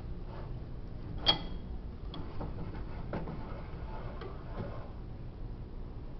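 Irregular light ticks and clicks from a Clausing Atlas 10-inch table saw's blade-raising handwheel and gearing being cranked by hand with the saw switched off, with one sharp ringing metallic click about a second in.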